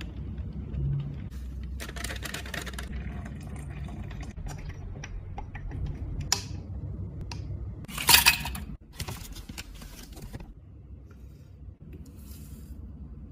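Glassware handling as a drink is mixed: a metal spoon stirring and clinking in a glass, with a loud clatter a little past the middle that fits ice cubes dropped into the glass. Near the end, a soft rustle of rolled oats poured into milk in a glass jar.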